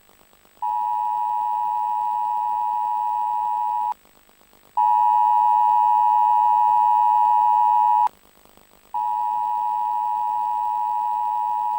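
Emergency Alert System attention tone: a steady electronic beep near 1 kHz sounded three times. Each beep lasts about three seconds, with a short silent gap between them, and the middle one is louder.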